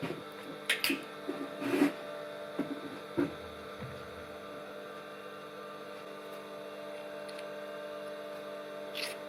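Steady hum of workshop machinery, with a few light knocks and clinks in the first three seconds or so as metal parts are handled and fitted together.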